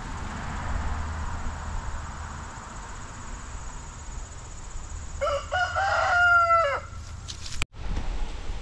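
Wind gusting across the microphone, then about five seconds in a rooster crows once, a crow lasting about a second and a half.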